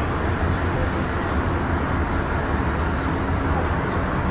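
Steady outdoor background rumble, even throughout, with no distinct events.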